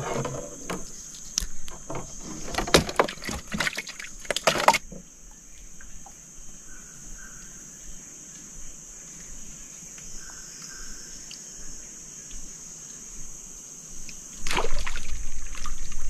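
Steady high-pitched insect chorus droning throughout, with a cluster of splashing and knocking sounds in the first five seconds and another burst of water noise near the end.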